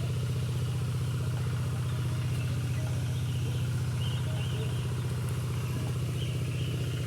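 Small engine running steadily at a constant speed, an even low hum with no change in pitch.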